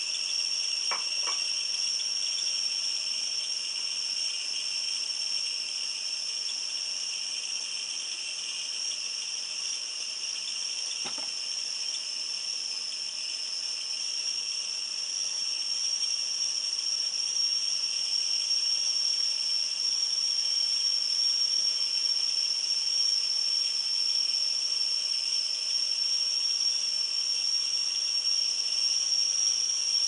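Stainless-steel stovetop whistling kettle whistling at the boil: one steady high-pitched whistle with a fainter lower tone beneath it and a hiss of steam, growing slightly louder about halfway through.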